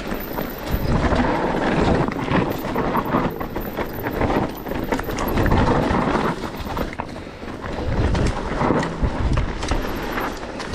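Specialized Turbo Levo electric mountain bike descending a rough trail: tyres rattling and crunching over rocks, with a dense clatter of knocks from the bike, swelling and easing every few seconds.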